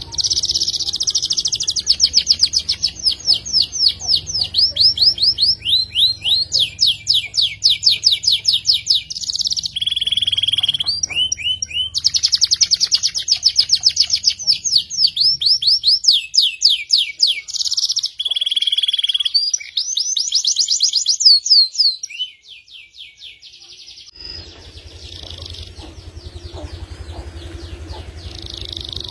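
Canary (F2 YS) singing a long song of fast trills, runs of rapidly repeated notes each sweeping down in pitch, broken by a couple of short held whistles. The song stops about 22 seconds in, and a fainter, steadier twitter follows near the end.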